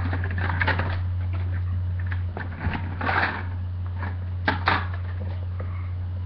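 Plastic parts of a toy security locker clicking and knocking as they are handled and fitted together, a few separate taps, two close together near the end, over a steady low electrical hum.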